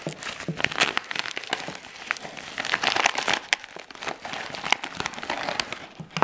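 Paper mailer envelope and plastic bubble wrap crinkling and rustling as the packaging is torn open and pulled apart by hand, a continuous irregular run of crackles.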